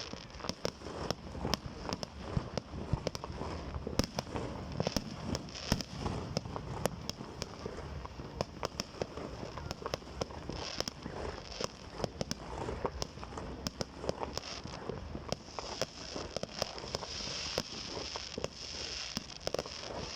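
Fireworks display going off: a rapid, continuous series of sharp bangs and pops over a bed of crackling, the crackling growing stronger in the last few seconds.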